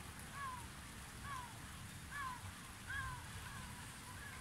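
An animal calling over and over, a short call that rises and falls, about once a second and about five times, over a low steady rumble.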